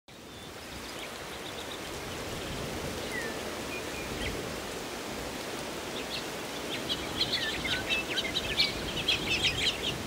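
Birds chirping and calling over a steady outdoor hiss that fades in at the start; the chirps grow busy and dense in the second half.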